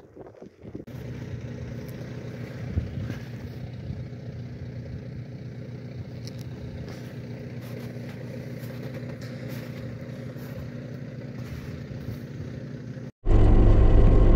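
An engine running steadily at an even pitch. Near the end it cuts off abruptly and a much louder engine sound begins.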